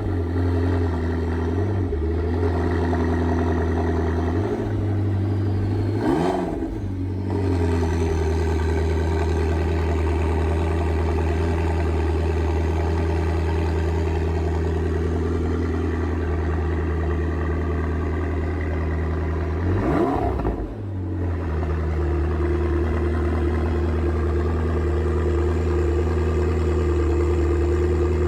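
McLaren MP4-12C Spider's 3.8-litre twin-turbo V8 on its stock exhaust, idling steadily just after a cold start. It is revved briefly twice, about six seconds in and again about twenty seconds in, the pitch rising and falling back each time.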